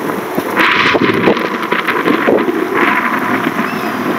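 Outdoor wind rushing and buffeting on the camera microphone, a steady noise that swells in gusts about half a second in and again near three seconds.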